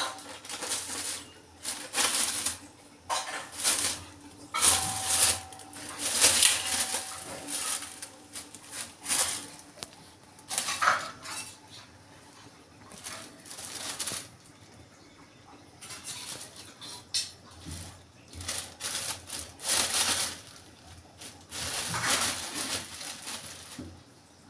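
Thin clear plastic bag crinkling and rustling in irregular bursts as a kitten wriggles and plays inside it, with a quieter stretch about halfway through.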